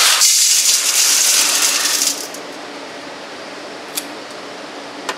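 Dried gravel aggregate poured from a metal pan into a stainless steel bowl, a rattling, clattering pour lasting about two seconds. It is followed by a steady low hum with two light knocks near the end.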